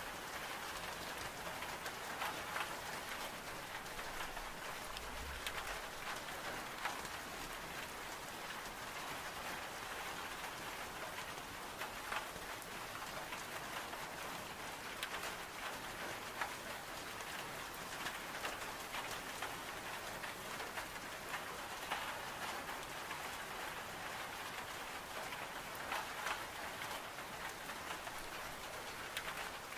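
Steady rain on window glass: an even hiss with scattered light ticks.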